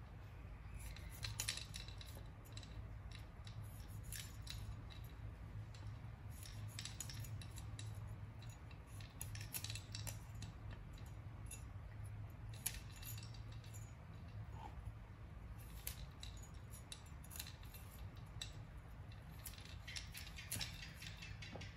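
Cleaver cutting broccoli florets from the stalk on a wooden chopping board: scattered crisp snips through the stems and light knocks of the blade on the wood, over a faint low hum.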